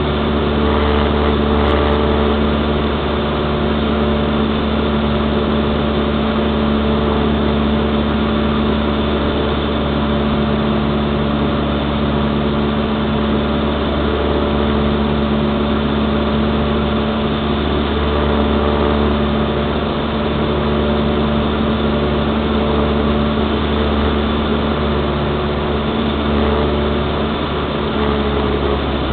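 Cessna 172 piston engine and propeller droning steadily in flight, heard from inside the cockpit.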